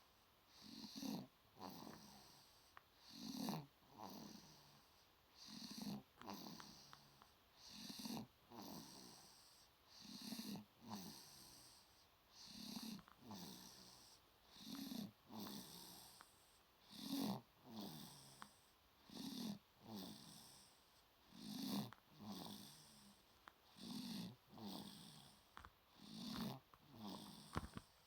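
A five-month-old baby snoring in its sleep: a low snore on each breath, repeating evenly about every two seconds.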